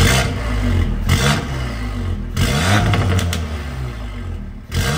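Audi S3 (8Y) 2.0-litre turbocharged four-cylinder, breathing through an aftermarket 4-inch downpipe, revved on a cold engine in dynamic exhaust mode. There are about three short blips, each climbing and falling back toward idle, with a few sharp cracks from the exhaust after the later revs.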